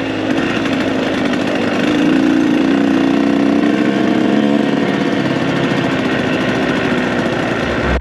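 Dirt bike engine running at low, fairly steady revs, with a slight pickup in pitch a couple of seconds in.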